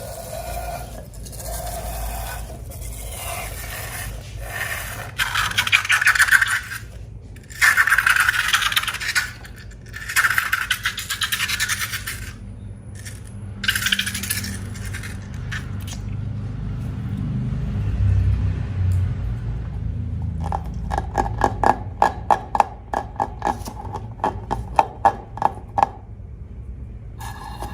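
Slime being worked by hand in a container, in loud bursts of scraping, then a run of quick clicks near the end.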